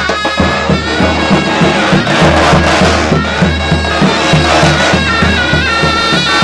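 Davul and zurna playing Turkish folk music: the shrill, reedy zurna carries an ornamented melody over steady, evenly spaced beats of the davul bass drum.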